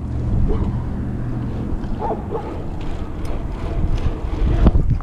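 Wind buffeting the microphone as a low, steady rumble, with a few sharp knocks near the end.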